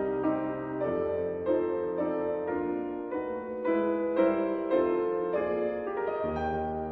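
Background piano music: slow notes over a sustained bass.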